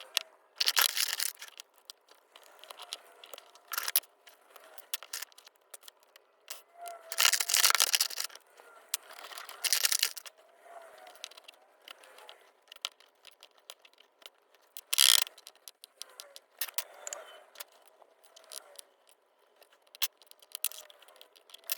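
Pin-tumbler lock cylinder being taken apart by hand: irregular small metallic clicks, scrapes and rattles of tools and parts, with louder bursts of handling noise about a second in, around 7 to 8 and 10 seconds in, and a sharp one near 15 seconds.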